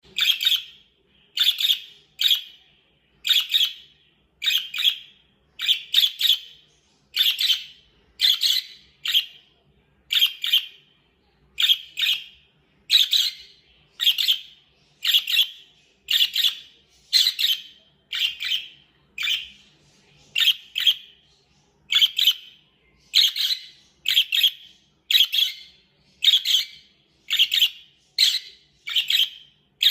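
Pet budgerigar chirping: a regular series of short, sharp chirps, about one or two a second, often in pairs.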